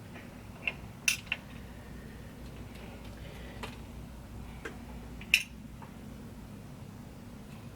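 Scattered small sharp clicks and ticks of a screwdriver and tiny screws as the cooling fan is unscrewed from a MacBook Pro's chassis, about six in all, the loudest a little over five seconds in.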